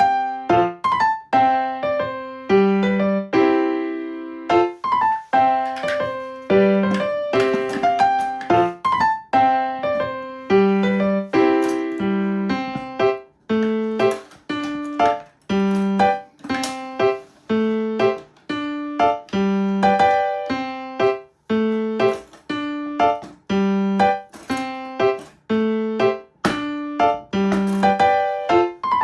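Background music: a piano or electric-piano tune with notes struck in a steady, even rhythm.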